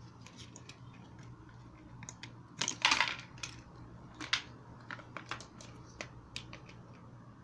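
Hands working with small parts and tools: a series of light clicks and taps, with a louder scraping rustle about three seconds in, over a faint steady hum.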